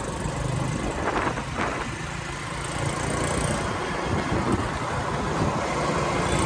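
Motor scooter running along a street at road speed: steady engine hum under road and wind noise, heard from the rider's seat.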